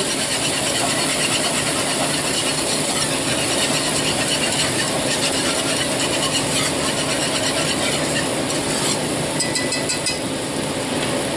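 Wire whisk scraping and stirring around a nonstick frying pan of chicken stock reducing over the burner: a steady rasping swish over the simmer, with a few light clicks near the end as the whisk comes out.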